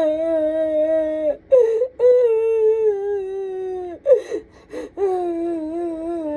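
A woman crying hard: long, drawn-out wails that slide down in pitch, broken by sharp gasping breaths about a second and a half in and again about four seconds in.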